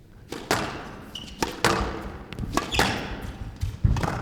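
Squash rally: the ball cracking off rackets and the court walls about once a second, each hit ringing on in the court's reverberation.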